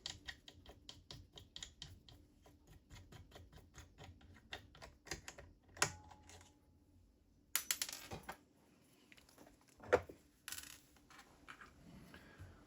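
Small metal lathe parts being handled, probably accessories of the G. Boley F1 8mm lathe: a run of light, fairly even clicks for the first five seconds or so. Then come a few louder knocks and a short clatter.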